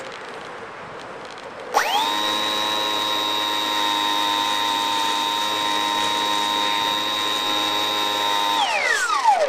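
A small high-speed motor whining: it spins up sharply about two seconds in, holds one steady high pitch for about seven seconds, then winds down in pitch near the end.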